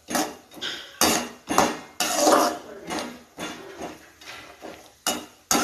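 A perforated steel slotted spoon stirring cashew pieces frying in ghee in a steel kadai. The spoon scrapes and knocks against the pan in quick strokes, about two a second.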